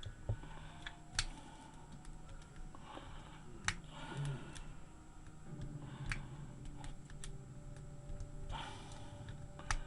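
Small metal parts of a Jennings J22 pistol clicking and being handled as it is taken apart: a few sharp clicks spaced seconds apart over faint handling noise.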